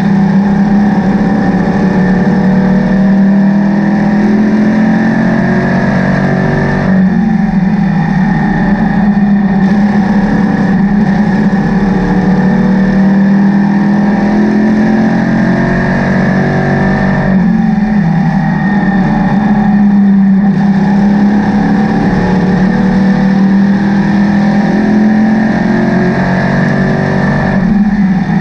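Race car engine at racing speed, loud and steady, heard from inside the cockpit. Roughly every ten seconds the engine eases off briefly and then climbs back up in pitch as the car lifts for a turn and accelerates out of it.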